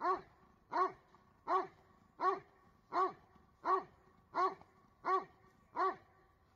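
Doberman barking steadily at a motionless protection helper, nine sharp barks at an even pace of about three every two seconds, each falling in pitch at its end: the dog's guarding (hold-and-bark) in IGP protection work.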